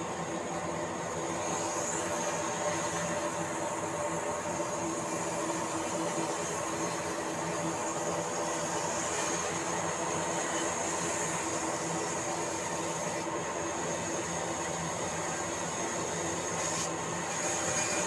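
Large electric band saw running steadily as a log is fed through the blade and ripped lengthwise.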